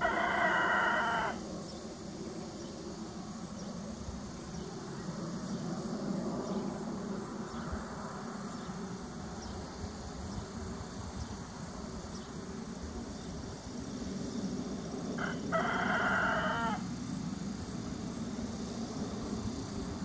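A rooster crows twice, about fifteen seconds apart, each crow about a second and a half long, over a steady low hum.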